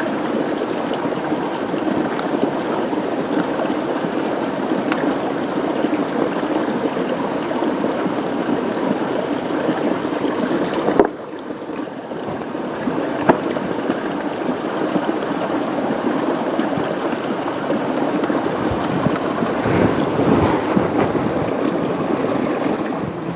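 Steady rushing water, the sound of a fast river and rain, with a brief sudden drop about eleven seconds in.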